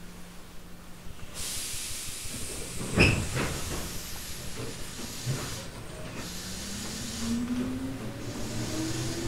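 Tobu 8000-series electric train, heard from inside the car, starting off from a stop: a hiss of air from about a second in, a single loud clunk about three seconds in, then the TM-63 traction motors' hum rising steadily in pitch as the resistance-controlled train accelerates.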